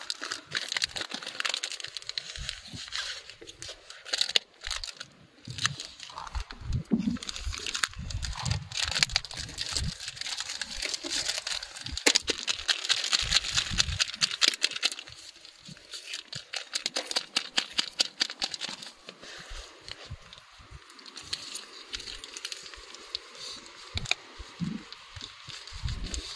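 Plastic packaging crinkling and tearing as it is opened by gloved hands, a dense run of small crackles that keeps going with short pauses.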